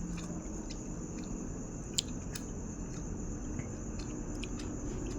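A person chewing food close to the microphone, with scattered small wet mouth clicks and one sharper click about two seconds in.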